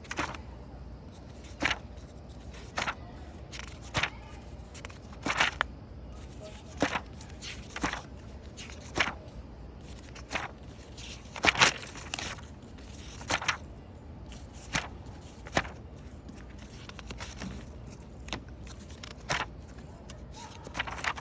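Paper pages of a notebook being turned one after another, each turn a short sound, roughly one a second.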